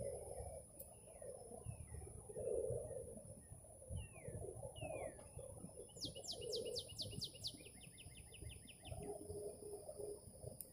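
Birds calling outdoors: rapid trills of short, falling high chirps, scattered single chirps, and repeated low calls. A thin, steady high-pitched tone runs underneath.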